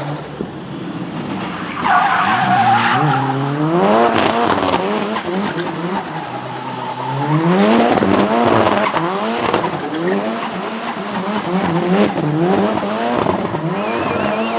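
Nissan 200SX drift car's turbocharged four-cylinder engine revving hard in repeated rising pulls, about once a second, while its tyres squeal and skid through a drift. The squealing and revving start about two seconds in.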